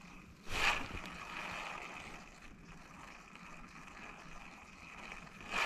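Faint outdoor water and wind noise by a river, with two short louder swishes, one about half a second in and one near the end.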